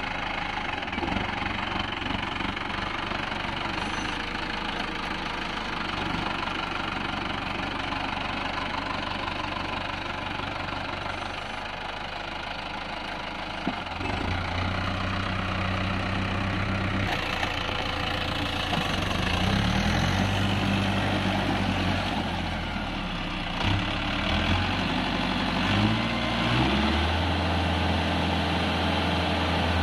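Mahindra Novo 655 DI 4x4 tractor's diesel engine running as the tractor drives through a flooded, muddy paddy field. About halfway through the engine note grows stronger and steadier, shifts in pitch several times, then holds steady near the end.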